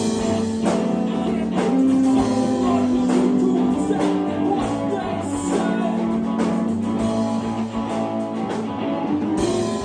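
Live band jam: electric guitar and bass with drums and a singing voice, held notes over a steady beat.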